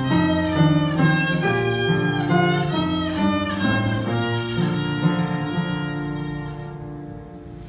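A child's violin playing a melody over grand piano accompaniment. The music dies away near the end.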